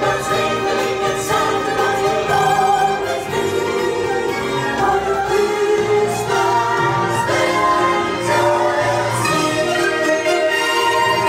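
Orchestral music with strings and a choir singing, played continuously.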